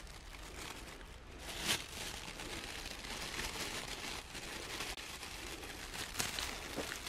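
Soft rustling and crinkling of something being handled, with a sharper rustle about a second and a half in and another near the end.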